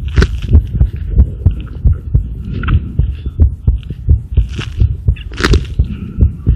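Human heartbeat picked up through a stethoscope chest piece and recorded by mobile-phone earphones: low beats repeating steadily, with a brief scratchy noise about five and a half seconds in.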